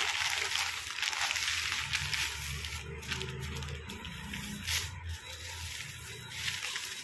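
Clear plastic bag and bubble wrap crinkling and rustling as they are handled, with a few sharper crackles about three, four and five seconds in.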